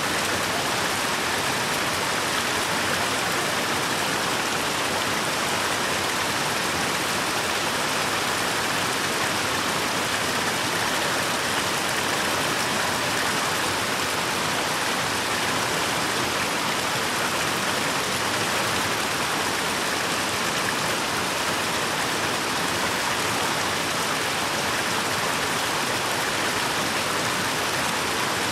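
Water from a spring fountain's spout running steadily without a break.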